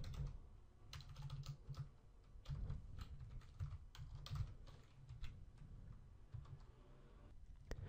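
Faint typing on a computer keyboard: irregular keystrokes in short runs.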